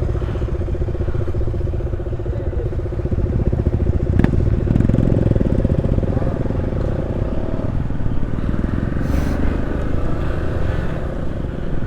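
Hero XPulse motorcycle engine running steadily under way, with wind rumble on the mic. The engine note grows a little louder about three seconds in, and there is a single sharp click about four seconds in.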